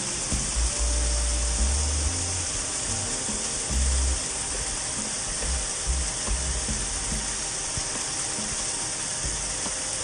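Steady rush of a creek tumbling over rocks below a waterfall, with background music whose low bass notes come and go over it.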